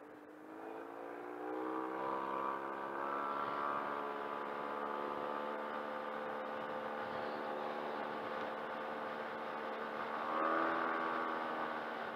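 Yamaha TMAX 500 maxi-scooter's parallel-twin engine pulling away: its pitch climbs over the first two seconds, then holds steady, and rises again briefly near the end.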